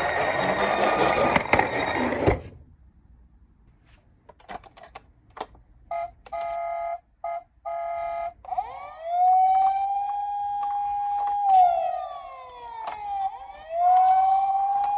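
A toy police car's electronic siren: after three short steady beeps it wails, rising to a held pitch, sliding down and rising again. Before it, a loud noisy sound cuts off about two seconds in, followed by a few light clicks.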